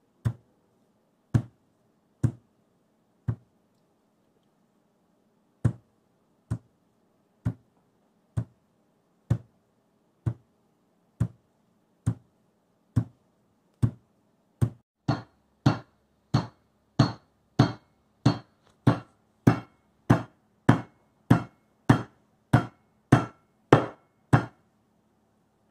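Spiked meat tenderizer mallet striking a pork chop on a plastic cutting board, tenderizing it. The knocks come about once a second, pause briefly around four seconds in, then quicken to about two a second and grow louder from about halfway through.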